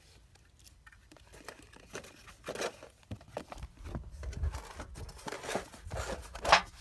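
Hands rummaging in a cardboard box: cardboard flaps rustling and scraping, and objects inside knocked and slid about, growing busier after the first couple of seconds, with a sharp knock near the end.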